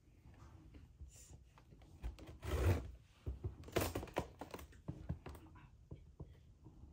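Handling noises: scattered light clicks, taps and rubbing, with a louder scrape or rustle about two and a half seconds in and a few more knocks around four seconds.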